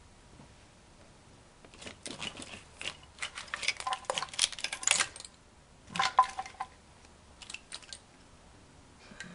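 Engine wiring loom and its plastic connectors clicking and rattling as they are handled and pulled loose. The clicking comes in spells and is busiest between about three and five seconds in.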